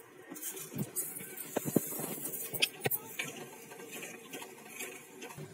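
Wooden spatula stirring and scraping milk in a kadhai, with a few sharp taps and knocks against the pan.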